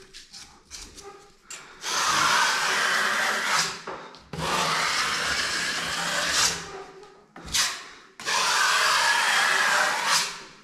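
Joint compound being spread on a wall: three long scraping strokes of about two seconds each, with short pauses between.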